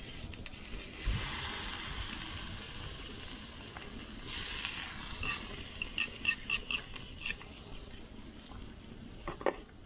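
Outdoor fire cooking: two spells of hissing, then a quick run of half a dozen light metallic clinks, with a few more ticks near the end.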